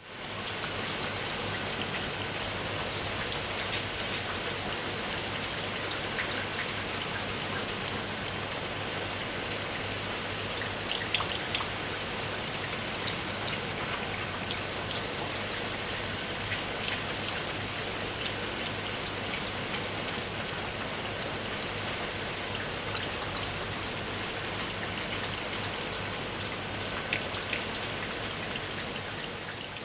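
Steady heavy rain: a dense, even hiss of countless drops striking a hard surface, with individual sharper drop hits ticking through it.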